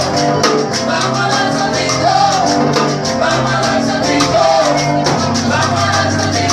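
Cuban dance band music played live, with a steady shaker beat, a walking bass line and a melodic line over it.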